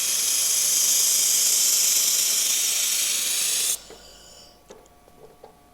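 2000 W dual-wire laser welder running a weld: a steady, loud hiss that cuts off suddenly about three and a half seconds in, followed by a few faint clicks.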